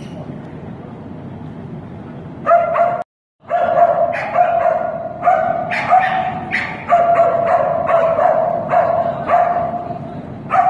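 Icelandic sheepdog barking repeatedly and excitedly, a steady string of loud barks a little under two a second, starting about two and a half seconds in and cut off briefly by a gap in the sound.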